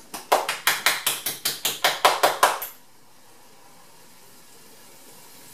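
Hand-twisted spice mill grinding over a sauté pan: about a dozen quick grinding strokes, roughly five a second, that stop a little under three seconds in.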